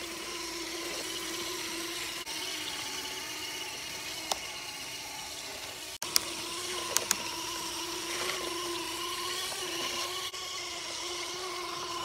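Small electric gear motor of a homemade bamboo toy truck whining steadily as it drives the wheels over sand, its pitch wavering slightly. A few sharp clicks come through over the whine.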